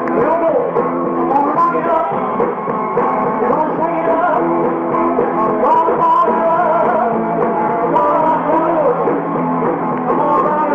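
Live rock and roll band playing a number, guitars and drums together, heard through a muffled old recording.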